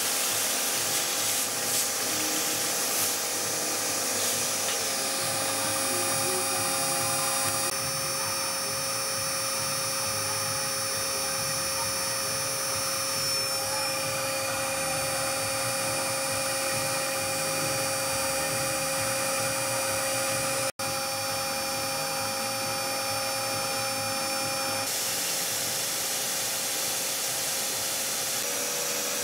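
Milling machine running an end mill through a slot, its motor whining steadily, with a vacuum cleaner running alongside to suck away the chips. The sound cuts out for an instant about two-thirds of the way through.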